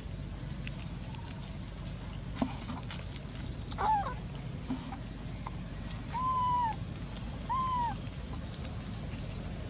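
Short pitched animal calls: one wavering call about four seconds in, then two brief calls a second apart, each rising then falling in pitch, over a steady high background drone.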